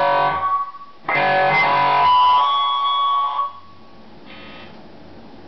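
Electric guitar played through a Line 6 PodXT modeler into a Crate Power Block amp. A short chord is cut off within a second, then a longer phrase lets notes ring on for about two and a half seconds. A faint brief note follows, over low steady amp noise.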